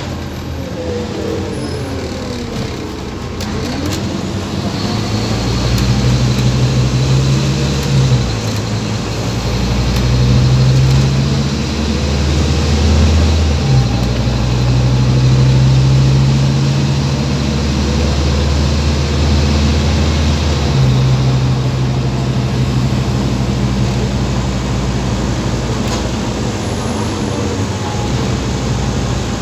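Scania OmniCity single-deck bus heard from inside the passenger saloon: the diesel engine pulling the bus along, its low note breaking off and changing several times, about eight, fourteen and twenty-one seconds in, as it goes through the automatic gears. Then it settles to a steadier running sound with road noise.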